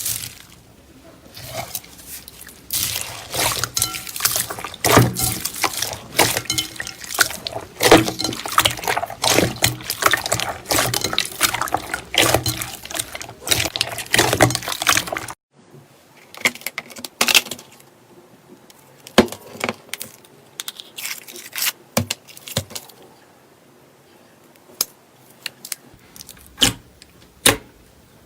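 Slime being squeezed and worked by hand: a dense run of wet clicks and crackling pops, cutting off suddenly about halfway through, then fewer, separate wet pops.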